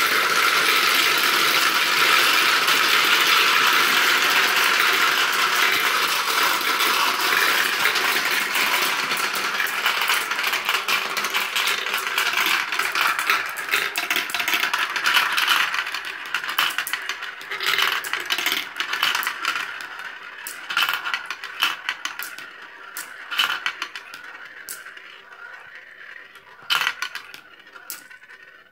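Many marbles rolling and clacking down a marble run: a dense, continuous rattle that thins out into separate clicks over the last third as the last few marbles run through.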